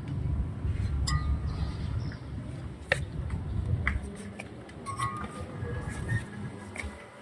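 Scattered sharp metallic clinks and knocks of tools and parts being handled, a handful of separate strikes, over a low rumble that fades about halfway through.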